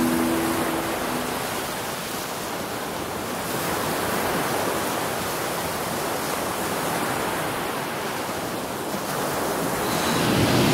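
Ocean surf: a steady rushing wash of waves that eases a little and builds louder again near the end.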